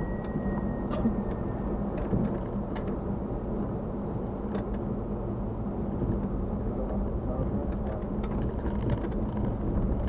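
Cabin noise of a Mitsubishi Pajero on the move: the engine running steadily under a constant rumble of road and tyre noise, with scattered light clicks and rattles.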